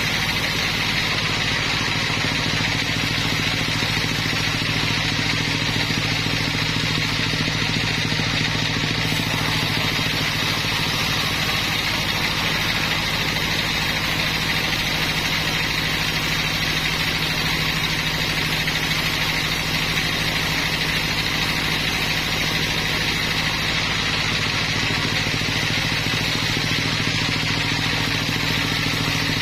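Sawmill machinery running with a steady, unchanging engine-like drone.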